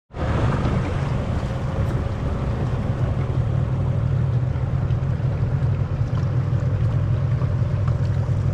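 Outboard motor of a small boat running steadily under way, with water rushing past the hull and wind on the microphone.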